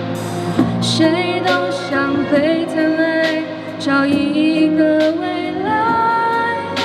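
A woman singing into a handheld microphone with instrumental accompaniment. Her held notes waver with vibrato, and a long note rises near the end.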